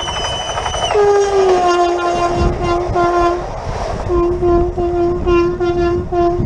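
Renfe Class 447 electric train's horn: a long blast that drops in pitch about a second in, then a run of short toots, two, a short pause, and about six more in quick succession. A low rumble of wind and the passing train lies underneath.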